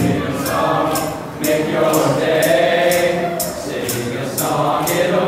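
Mixed-voice show choir singing a slow choral passage in sustained, held chords. It fades briefly about a second in and again near the end. A faint, regular ticking beat runs behind it.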